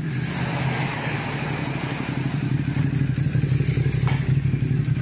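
A motor vehicle engine running steadily close by, a low even hum with street noise.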